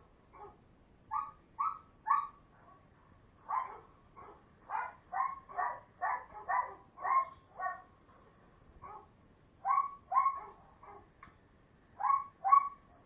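A dog barking repeatedly, short mid-pitched barks coming in runs with brief pauses, the fastest run at about two barks a second.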